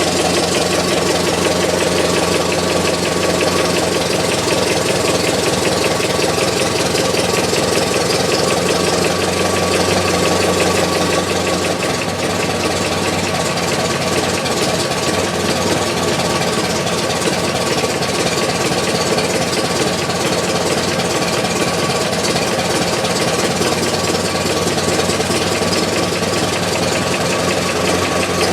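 Car engine idling steadily with a rapid, even knocking tick running through it, recorded close to the firewall at the back of the engine. The owner is trying to find where this engine knock is loudest.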